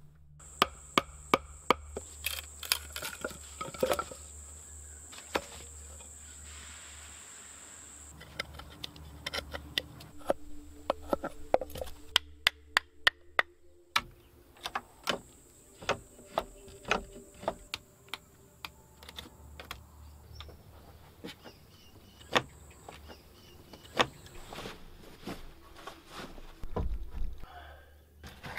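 Many sharp knocks and taps of wood being worked, coming in irregular runs and cut off abruptly in places. A steady high insect drone runs behind them for stretches.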